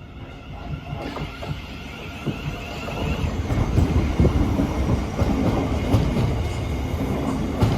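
A Class 707 Siemens Desiro City electric multiple unit approaching on the track. It grows steadily louder, swelling about three seconds in, with a run of short knocks from the wheels.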